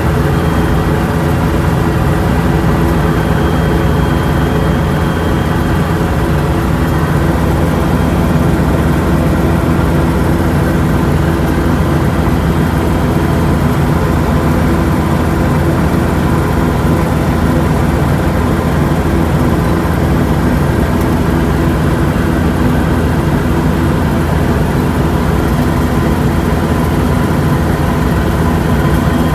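Yanmar YH6115 combine harvester's diesel engine and threshing machinery running steadily while harvesting rice, with a constant deep hum.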